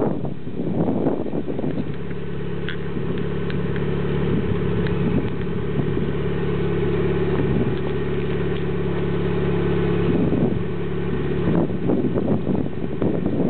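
Turbocharged Chrysler 420A 2.0-litre four-cylinder with 272 cams and a catless 2.5-inch downpipe into a 3-inch cat-back exhaust, running at a steady engine speed for several seconds, with an uneven, shifting engine note at the start and again near the end.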